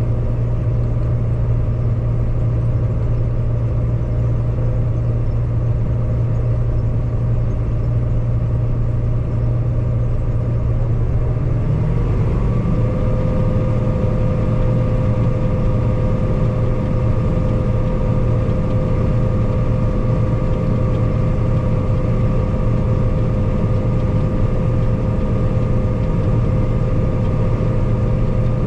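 Combine harvester running steadily. About twelve seconds in, a whine rises and settles into a steady higher tone as the threshing machinery and corn head are engaged and spin up to speed.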